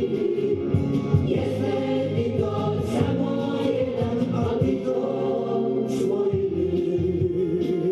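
Music: a choir singing a song in long held notes.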